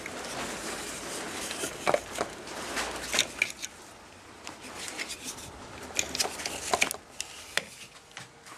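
Irregular clicks, knocks and rustles of an electric plug being handled and pushed into a power strip, over a faint hiss.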